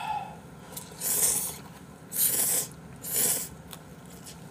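Three short slurps of ramen noodles, about a second apart.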